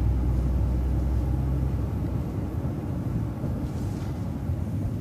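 Transit bus driving, heard from inside: a steady low engine and road rumble that is strongest for the first couple of seconds, then eases slightly.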